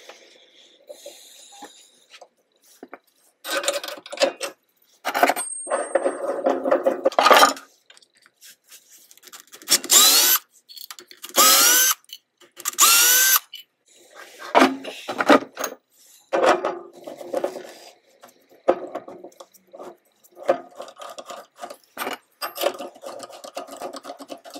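Cordless drill-driver run in several short bursts, its motor whining up in pitch each time, backing screws out of a faceplate on the bowl's base. Clicks and rattles of metal parts being handled in between and afterwards.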